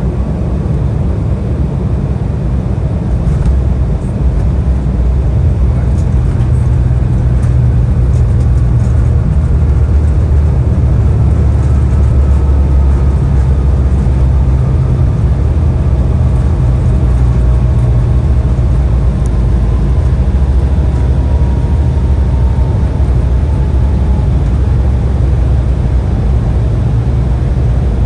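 Cabin noise inside an Embraer 175 airliner on the ground after landing: a loud, steady low rumble that swells a few seconds in. A faint whine slowly falls in pitch through the middle.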